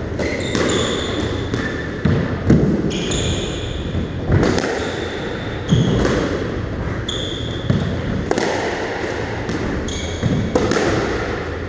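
Squash ball being struck by rackets and smacking off the court walls, about a dozen sharp, echoing hits, mixed with short high squeaks of shoes on the wooden court floor.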